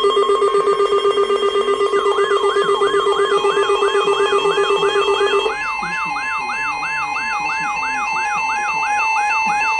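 Several weather-alert radio and EAS alarm tones sounding together, heralding a new warning. A pulsing, buzzing tone stops about halfway through. A repeating electronic whoop, roughly two to three a second, starts about two seconds in and keeps going, with a trilling two-note beep and a steady high tone alongside it.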